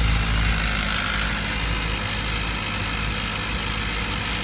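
2005 Kawasaki Ninja ZX-6R 636's inline-four engine idling steadily, just refilled with fresh synthetic oil that it is now circulating.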